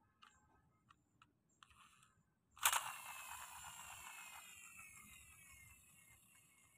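Faint clicks of plastic toy vehicles being handled, then about two and a half seconds in a sudden crash with a long ringing tail that slowly falls in pitch and fades over about four seconds.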